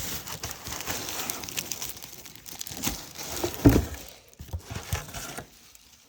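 Deflated bubble wrap and plastic packaging crinkling and rustling as a mail package is unwrapped, with a single knock a little past halfway and quieter rustles after.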